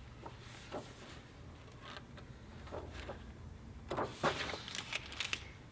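Pages of a hardcover picture book being turned and handled: a few faint paper rustles and light taps, then a small cluster of them about four seconds in, over a low room hum.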